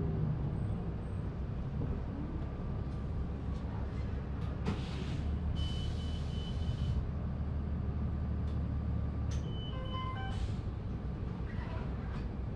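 Idling diesel engine (Cummins ISL) of a 2005 New Flyer D40LF transit bus standing at a stop, a steady low rumble. Two short bursts of air hiss come about five and six seconds in, and a brief electronic beep about ten seconds in.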